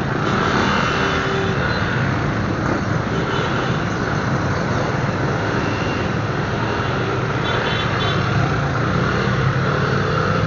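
Motorcycle running on the road in traffic: a steady mix of engine and road noise heard from the rider's own camera.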